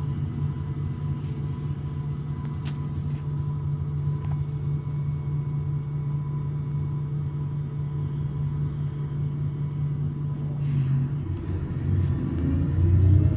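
MAN Lion's City city bus's rear-mounted engine idling steadily at a stop. Near the end the engine note rises and gets louder as it revs up.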